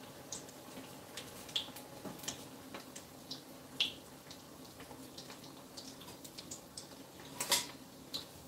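Breaded rice balls (arancini) shallow-frying in hot oil, giving faint, irregular crackling pops, with a brief louder rustle about seven and a half seconds in.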